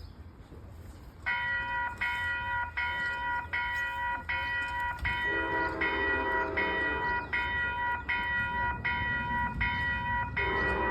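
A railroad grade-crossing bell starts ringing about a second in, with about four strokes every three seconds. An Amtrak locomotive horn sounds a long blast about five seconds in and starts another near the end.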